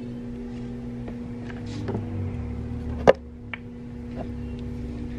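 Steady low electrical-type hum with a low rumble beneath it, a few light knocks, and one sharp click about three seconds in.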